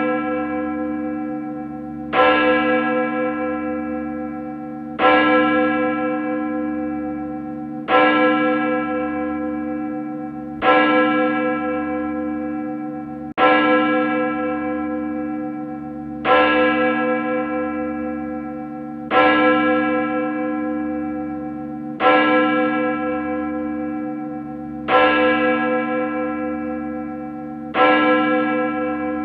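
A single large bell, such as a church bell, tolling slowly at the same pitch, one stroke about every three seconds. Each stroke rings on with a long hum and fades before the next; there are ten strokes.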